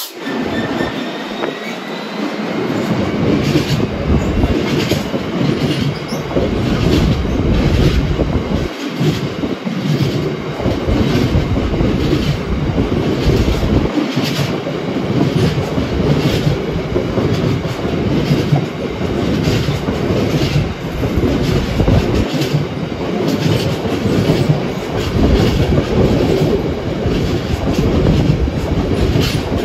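A long freight train rolling through the station, its wagon wheels clicking over the rail joints about once a second over a steady rumble, with a faint wheel squeal near the start.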